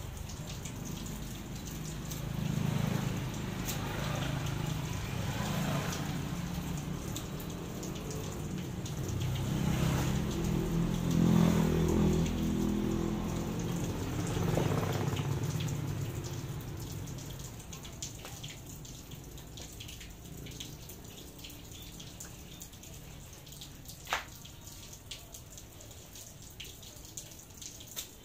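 Steady rain with water dripping and splashing onto a wet tiled patio. A low rumble runs under it for the first two-thirds, then fades out. A single sharp tap comes near the end.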